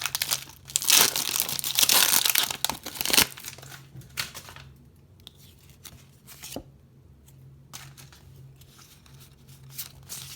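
Foil Pokémon booster pack wrapper being torn open: loud crinkling and tearing for about the first three seconds, then quieter rustling and handling of the wrapper and cards.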